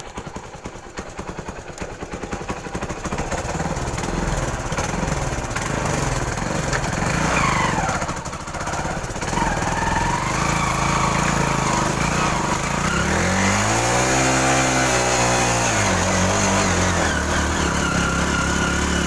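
Motorcycle engine running quietly at first, then revving harder as the bike pulls through deep mud. The revs rise and fall, with one long swell up and back down about two-thirds of the way through.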